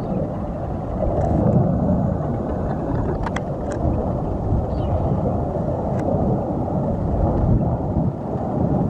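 Jet aircraft flying past in the air, a steady low rumbling roar that swells and fades slightly.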